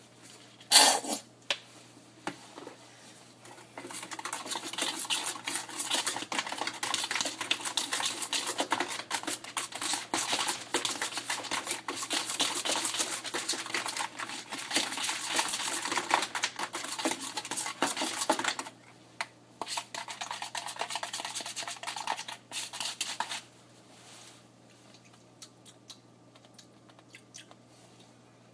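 A spoon stirring a sauce in a bowl, clinking and scraping rapidly against the bowl for nearly twenty seconds, after a single sharp knock about a second in.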